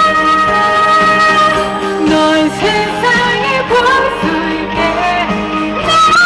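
Live pop music from a band on stage: a long held high melody note, then a moving melody line with slides between notes over the backing.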